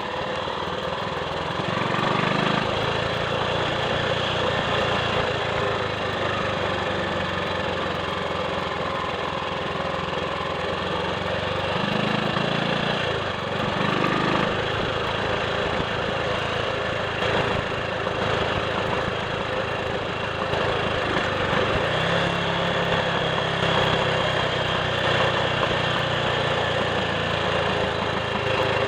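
Triumph Sports Cub's single-cylinder four-stroke engine running on the road, its note shifting several times: about 2, 12, 14 and 22 seconds in.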